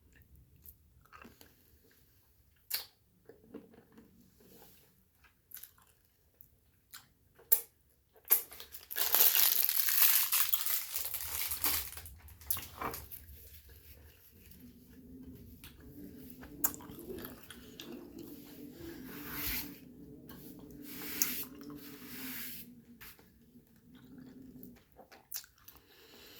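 Close-miked chewing and mouth sounds: scattered clicks at first, then a louder stretch of crunching about eight seconds in. A low wavering drone sits under the softer chewing in the second half.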